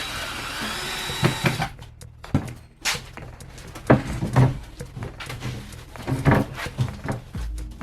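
A scraping or sliding noise for about the first second and a half, then a run of irregular knocks and clunks as objects are handled and set down.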